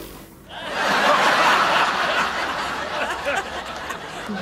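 Audience laughing: the laughter swells about half a second in and slowly dies away.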